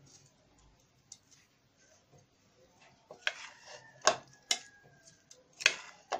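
A spoon stirring chopped and grated vegetables in a bowl: soft, faint stirring at first, then several sharp clicks of the spoon knocking against the bowl from about three seconds in.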